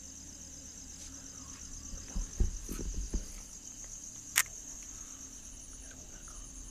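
Crickets trilling steadily in a fast, even pulse. A few low thumps come about two to three seconds in, and a single sharp click a little past four seconds.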